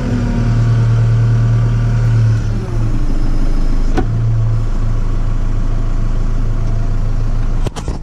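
Compact tractor's engine running steadily as the tractor drives, heard from inside the cab, with a fainter whine that dips in pitch about two to three seconds in and then rises again. A sharp click about four seconds in and a few clicks near the end.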